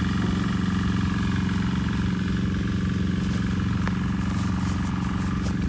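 A steady, unchanging low engine drone, like a motor running at idle, with a few faint clicks about three to four seconds in.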